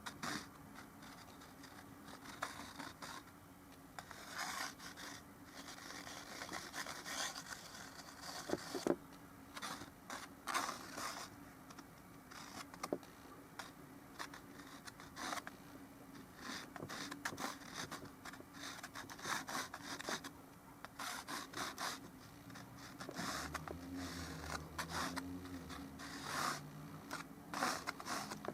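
Oil-painting brush strokes scraping and scrubbing across a small painting surface, in irregular short strokes.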